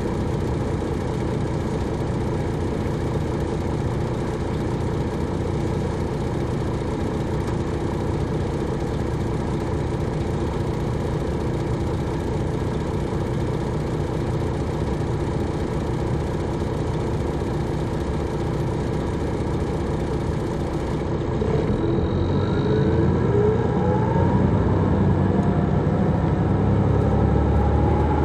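Detroit Diesel Series 60 diesel engine of an MCI D4000 coach, heard on board, running steadily. About 21 seconds in it grows louder and its note climbs in pitch as the bus accelerates.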